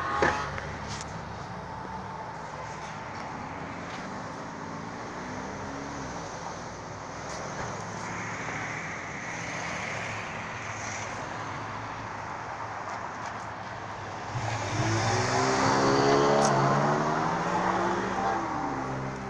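Street traffic noise, with a motor vehicle passing close and louder for a few seconds near the end, its engine pitch rising and falling.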